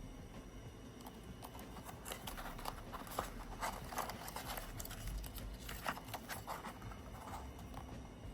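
Scattered light taps and clicks of small objects being handled close to the microphone, irregular, with a couple of sharper knocks partway through.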